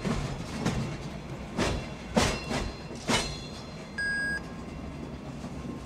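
Caboose rolling over jointed track, its wheels knocking over the rail joints in several irregular sharp clacks over a steady rumble. A single short electronic beep sounds about four seconds in.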